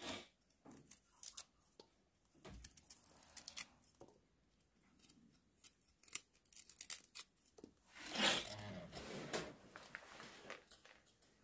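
A paring knife scraping the skin off deodeok (Codonopsis lanceolata) roots: irregular short rasping strokes, with a louder, longer rasp about eight seconds in.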